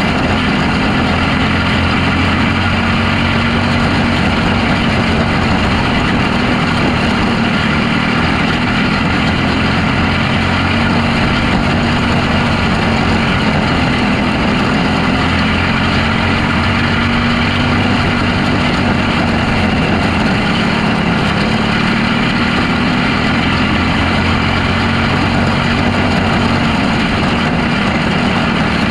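Restricted box stock micro sprint car's engine running hard under racing load, heard from on board. It runs continuously, its pitch rising and falling a little as the car goes around the oval.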